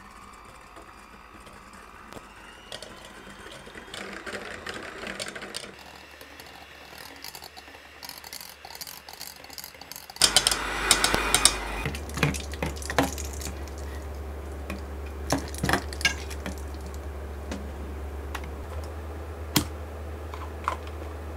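Electric hand mixer whipping cold cream in a stainless steel bowl: a faint steady motor whine with the wire beaters clattering against the bowl. About ten seconds in it turns louder and rougher for a couple of seconds as the cream stiffens, then gives way to scattered clicks and knocks.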